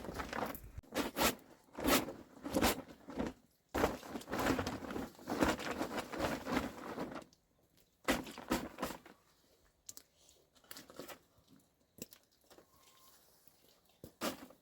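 Irregular crunching, tearing and rustling handling noises: dense and busy for about the first seven seconds, then sparser knocks and rustles.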